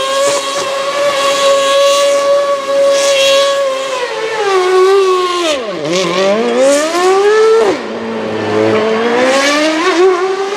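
The Ferrari Type 056 2.4-litre V8 of a 2013 Sauber C32 Formula 1 car, held at high, steady revs while spinning its rear tyres in a burnout donut. About five seconds in the revs fall sharply and climb back, then drop once more and rise again near the end.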